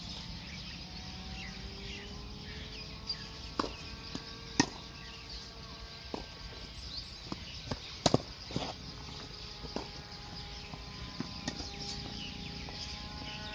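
Tennis ball being struck by rackets and bouncing on a hard court during a rally: sharp pops a few seconds apart, the loudest about four and a half seconds in and a quick double pop about eight seconds in. Behind them a steady outdoor background with faint bird chirps and a long, faint drone.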